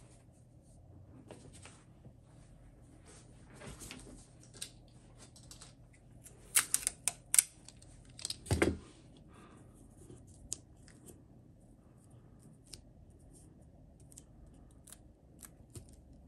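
Clear adhesive tape being handled, pulled and torn from its roll, with scattered clicks and rustles of paper and a short run of sharp tearing sounds about two-thirds of the way in, followed by a thump of something set down.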